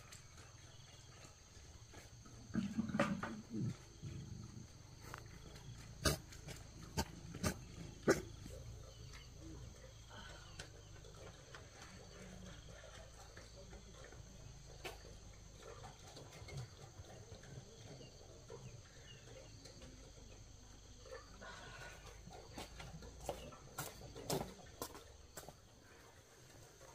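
A low, rough animal grunt about three seconds in, then scattered sharp clicks and knocks over a low steady hum.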